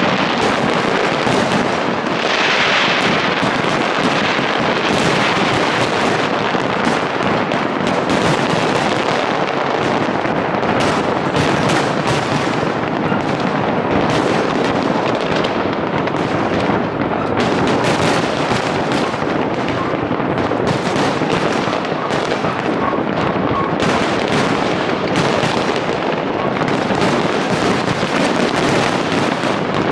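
Large aerial fireworks display: a dense, continuous barrage of overlapping bangs and crackles with no gaps.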